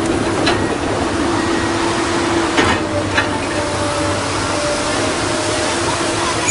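Komatsu PC200-8 excavator's diesel engine running close by with a steady rumble and a held tone, broken by a few sharp clinks about half a second, two and a half and three seconds in.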